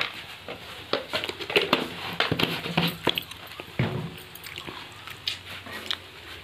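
A metal ladle clinking and scraping against a kadhai holding frying mushrooms and spice powder: a run of short sharp knocks, thickest between about half a second and three and a half seconds in. A few brief pitched sounds, voice- or animal-like, come in the background around the middle.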